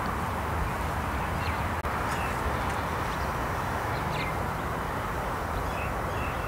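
Steady outdoor rushing background noise, with a few short, high bird chirps scattered through it.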